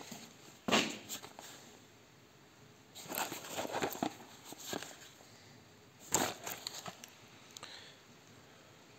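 Scattered knocks and rustling from handling: moving about and picking up a saw chain's cardboard box, in short clusters about a second, three to five seconds and six seconds in.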